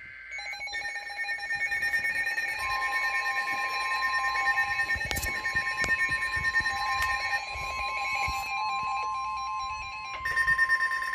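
Several NOAA weather alert radios going off together for a severe thunderstorm warning, with overlapping pulsing electronic alarm beeps. About two and a half seconds in, the steady 1050 Hz weather radio warning tone begins and holds, while the beeping pattern changes near the end.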